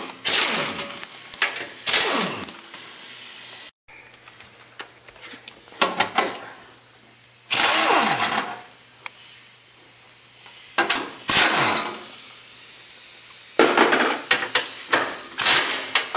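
Handheld power drill run in short bursts, about six times, each ending in a whine that falls in pitch as the motor spins down.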